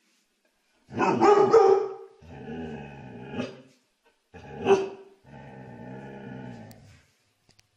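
A dog barks loudly about a second in, then makes a long, steady growl; a second sharp bark comes just before the halfway point, followed by another long growl.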